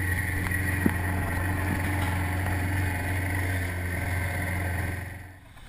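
Outboard motor of an inflatable dive boat running steadily at speed: a low, even drone under the rush of wind and water. It drops away near the end.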